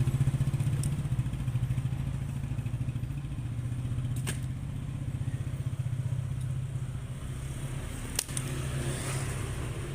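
A small engine running steadily at idle, a low pulsing hum, with three sharp clicks or knocks spread through it.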